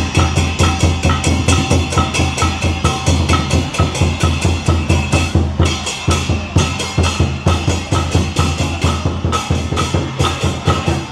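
Traditional festival drums beating a fast, steady rhythm as dance accompaniment, each beat a deep drum stroke paired with a sharper, higher knock.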